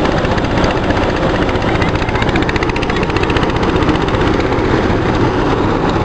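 Rice thresher running steadily, a loud dense mechanical noise, while bundles of harvested rice stalks are fed into it.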